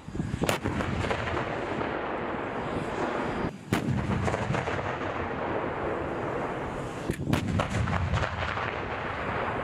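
Tanks firing on a range: several sharp gun blasts over the steady rumble of tank engines and tracks. One blast comes about half a second in, another near the middle, and two close together about seven seconds in.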